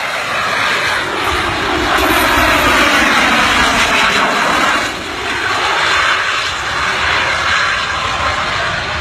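Loud, steady rushing roar of an aircraft-type engine, swelling and easing a few times, with a brief dip about five seconds in.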